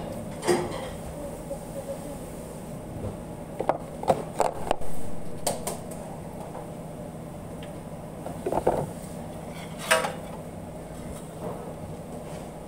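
Metal utensils knocking and clinking against a steel flat-top griddle: a quick run of knocks about four to five seconds in and a sharper clank about ten seconds in, over a steady hum of kitchen ventilation.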